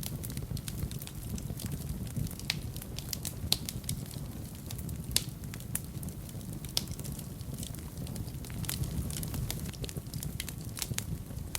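Fire in a fireplace crackling, with a steady low rumble of flames under irregular snaps and pops, a few of them louder.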